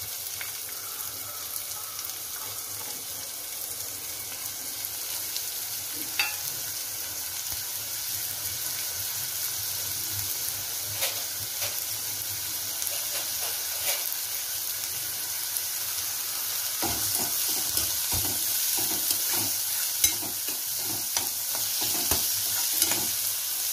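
Chopped onion frying in hot oil in a nonstick kadhai: a steady sizzling hiss with occasional sharp pops. About two-thirds of the way in, a steel spoon begins stirring and scraping the onion around the pan in quick repeated strokes.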